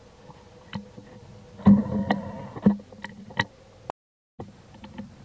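Dry leaf litter and twigs crackling and snapping as a macaque forages on the forest floor: scattered sharp clicks, with a denser crackle about two seconds in. The sound drops out briefly near the end.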